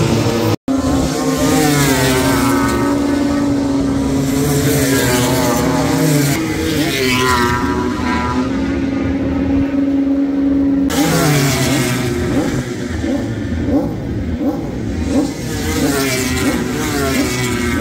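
Racing motorcycle engines running at high revs on the circuit: a held engine note with several rising sweeps in pitch as bikes accelerate. The sound cuts out for an instant about half a second in.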